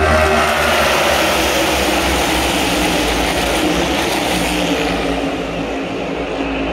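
A pack of NASCAR Cup Series stock cars with V8 engines roars past the grandstand. The engines' pitch falls as the pack goes by, and their sound lingers as the cars pull away down the track.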